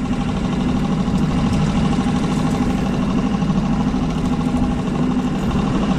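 Small fishing boat's outboard motor running steadily at slow trolling speed.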